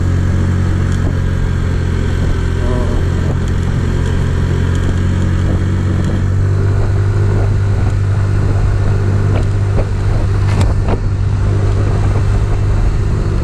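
Kymco Super Z 125 scooter engine running steadily at cruising speed, a constant low drone with road and wind noise, heard from the rider's seat.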